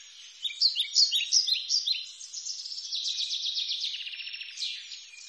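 European robin singing: a quick run of high, sliding notes, then a fast trill of many short notes about two seconds in, closing with a few falling notes near the end.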